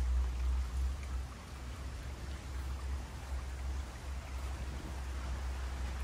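Water running in a small stream, an even rushing hiss with a steady low rumble underneath.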